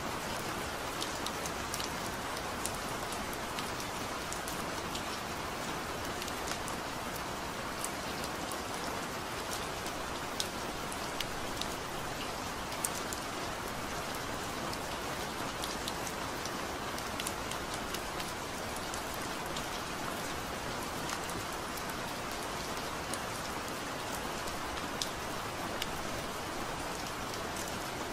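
Steady rain, an even patter with many small scattered drop ticks that does not change throughout.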